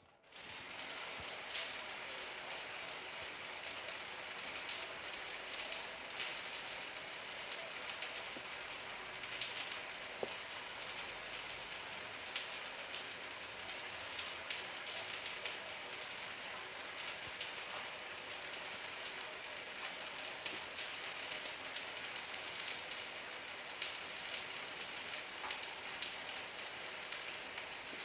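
Light rain falling steadily, a fine even hiss with scattered individual drops ticking.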